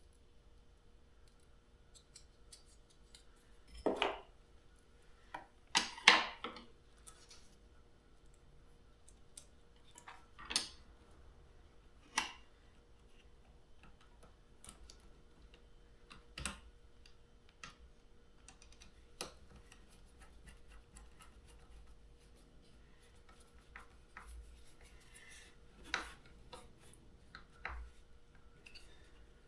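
Scattered metallic clicks and clinks of hand tools and hardware as a cable is fastened to an ATV battery terminal, the loudest a few sharp knocks about four and six seconds in.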